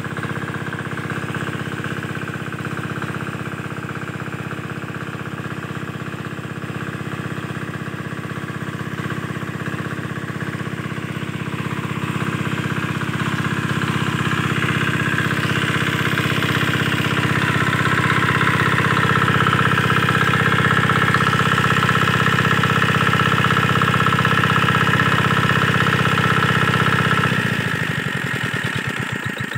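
Single-cylinder 5 hp diesel engine driving a water pump, running steadily with an even knocking beat. About two seconds before the end it is shut off and coasts down, its firing beats slowing and fading.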